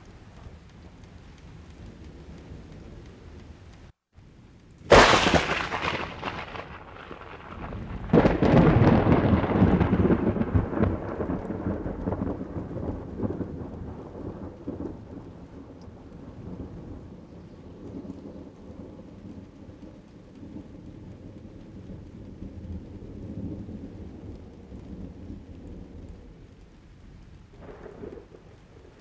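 Thunder sound effect over steady rain: a sharp, close crack about five seconds in, then a second burst a few seconds later that rolls into a long low rumble and slowly fades away.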